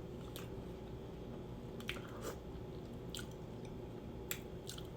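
A person chewing seafood boil food close to the microphone, with scattered soft wet clicks and smacks.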